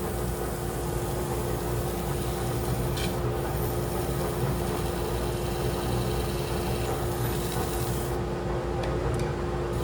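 A woodworking machine running steadily with one constant hum, under a continuous rubbing, rasping noise of wood being worked.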